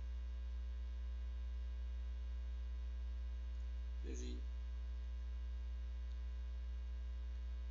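Steady electrical mains hum with a ladder of overtones, loud in the low end and running unbroken. A short voice sound comes about four seconds in.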